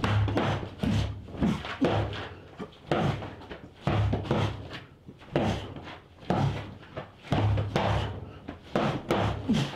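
Repeated dull thuds of a sock-weighted cloth slungshot, a headscarf with socks knotted inside, striking a training dummy. There are about a dozen blows, roughly one a second, some coming in quick pairs.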